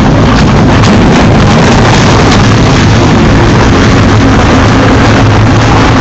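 1998 Challenger hopper-fed grinder running, a loud, steady din of its engine and machinery.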